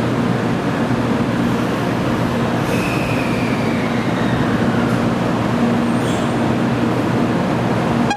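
Shinkansen train moving along the platform: a loud, steady rush and rumble with a low hum and a faint falling whine a few seconds in. It cuts off suddenly at the end.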